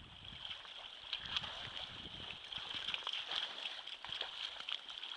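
Shallow river water rushing and splashing around wading legs, with scattered small splashes.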